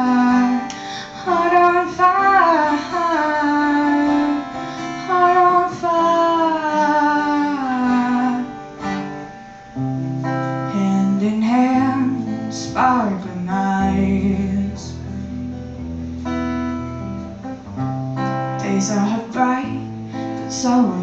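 A female singer performing a song with acoustic guitar. Her voice leads for the first half or so, then the guitar's low, held notes and strummed chords come forward with only brief sung phrases.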